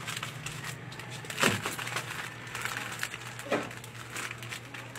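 Plastic-wrapped snack packets rustling and crinkling as they are handled on a display rack, with two louder sharp sounds, the first about a second and a half in and a weaker one about three and a half seconds in, over a steady low hum.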